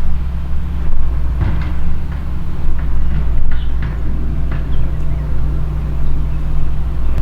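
A steady low mechanical hum, like a vehicle or machine running, with short high ticks scattered through it.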